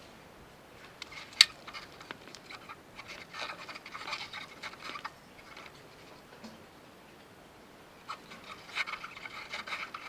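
Scattered scraping, rustling and light knocks of someone shuffling and crawling under a raised car, with one sharp click about a second and a half in.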